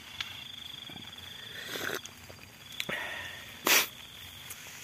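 Night insects, crickets by the sound, trilling in a fast, even, high-pitched pulse that stops and starts in stretches. About three-quarters of the way through there is one short, loud burst of noise, plus a couple of faint clicks.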